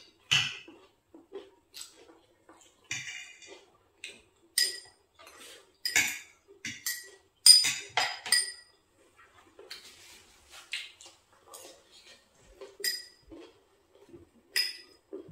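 Spoons and forks clinking and scraping on plates during a meal: irregular sharp clinks, some with a brief metallic ring.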